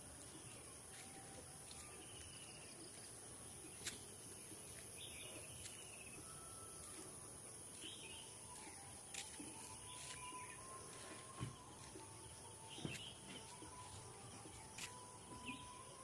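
Faint outdoor nature ambience: a steady high-pitched insect drone with scattered short bird chirps and a few soft clicks.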